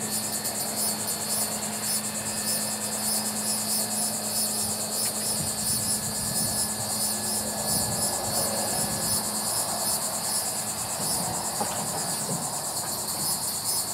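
Insects keep up a dense, fast-pulsing high buzz. Under it, a grapple truck's engine hums steadily low and drops away about two-thirds of the way through.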